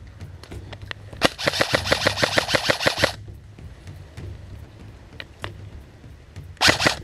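Airsoft gun firing two rapid full-auto bursts. The first lasts about two seconds, starting a little over a second in, and the second starts near the end. A few single clicks fall between them.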